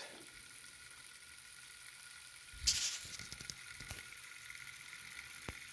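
Small 3D-printed pulse motor spinning slowly on a very low 1.9-volt supply, giving a faint steady hiss with a thin high tone. A brief burst of noise about two and a half seconds in and a click near the end.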